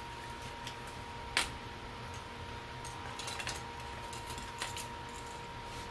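A few light clicks and clinks of jewelry being handled. The sharpest comes about a second and a half in, with a small cluster around three seconds and two more near the end, over a steady low hiss and faint hum.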